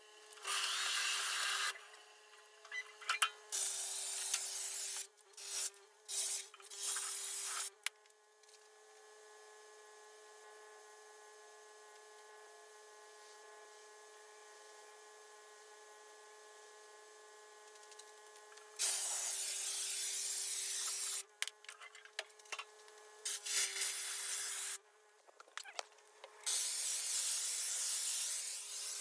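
Pressure washer spray hissing against flagstone in on-and-off bursts that start and stop abruptly as the trigger is pulled and released, with a steady hum underneath. About eight seconds in the spray stops for roughly ten seconds, leaving only the hum, then it comes back in bursts and runs steadily near the end.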